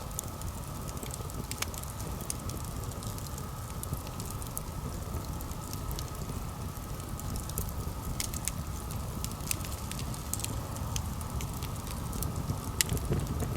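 Campfire crackling: scattered sharp pops and snaps over a steady low rushing noise.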